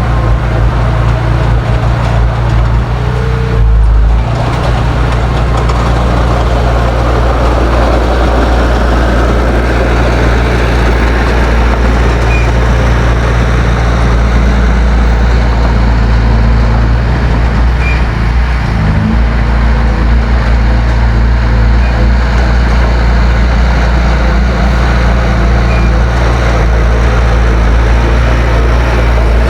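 Heavy diesel engine of earthmoving machinery running steadily and loudly, with a brief heavy low thump about four seconds in and a change in engine pitch a little past halfway.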